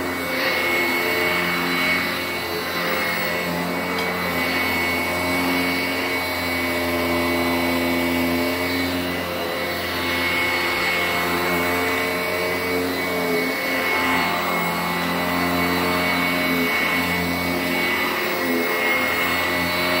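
Sanitaire 886E commercial upright bag vacuum running steadily on carpet, its motor giving a constant high whine over the rush of suction while it is pushed over the carpet.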